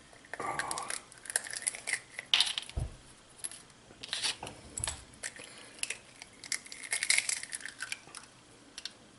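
Hard-shelled Toulouse goose egg being picked open by hand: the shell cracking and crunching in scattered short crackles as pieces are pulled away, with one dull thump about three seconds in.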